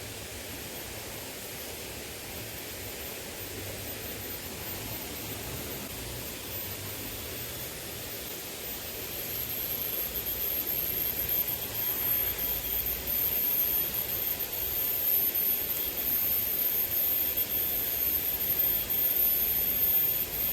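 Steady rushing of a small river's flowing water, growing a little louder about halfway through, with a thin, high, steady whine above it.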